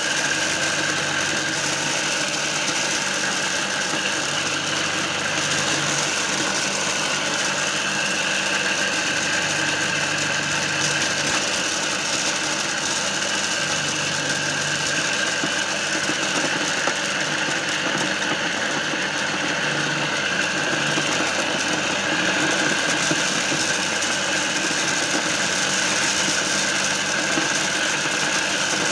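Homemade mini corn sheller running steadily: a belt-driven electric motor salvaged from a water pump spins the shelling drum inside a wooden box while dried cobs are fed in and their kernels are stripped off, giving a continuous mechanical whirr and rattle.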